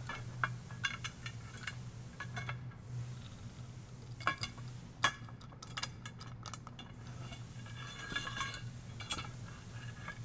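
Clicks and clinks of LED light pods being slid onto a light bar rail and pushed along it, several of the knocks ringing briefly. A steady low hum runs underneath.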